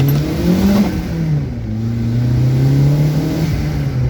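Turbocharged Fiat Uno engine accelerating through the gears: the revs climb, fall at a gear change about a second in, then climb again and fall near the end. The exhaust has a slight leak, which the driver thinks comes from the bolts on the turbo's hot housing.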